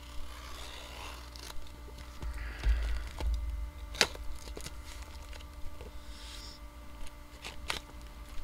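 Cardboard Gemini comic mailer being opened by hand: cardboard and tape tearing and rustling in short spells, with a few sharp clicks and some dull bumps from handling.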